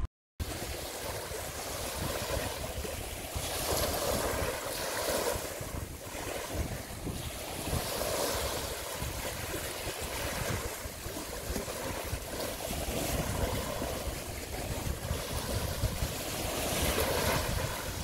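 Small waves washing onto a shallow beach, with wind buffeting the microphone. The noise rises and falls in slow swells and starts just after a split-second silence.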